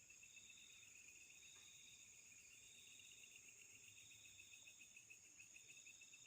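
Faint night chorus of crickets and other insects: a steady high-pitched drone, a rapid pulsing trill under it, and a third trill that starts and stops in bursts of about a second.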